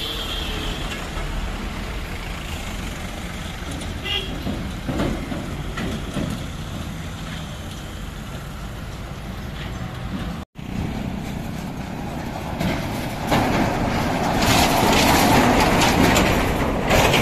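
Slow heavy highway traffic: trucks and cars rolling past, with a vehicle horn tooting at the start and a brief second toot about four seconds in. After a sudden break about ten seconds in, a louder rushing noise of passing traffic and wind builds near the end.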